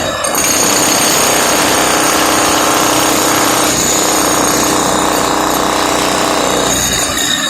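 Electric hammer drill chiselling into a floor, running steadily at full hammering, with a short let-up near the end.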